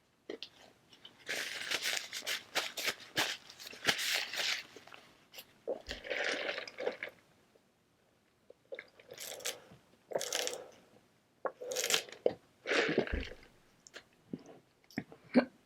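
Close-miked chewing of a McDonald's Sweet BBQ Bacon Burger topped with crispy fried onions, in crunchy bursts with short pauses between mouthfuls.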